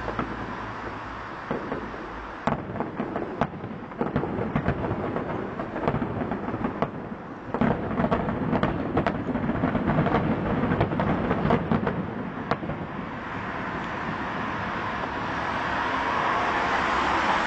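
Distant fireworks display: a long string of sharp bangs and crackles, thickest about eight to twelve seconds in, over a continuous rumble. The bangs die away after about thirteen seconds, leaving a steady rushing noise that grows louder toward the end.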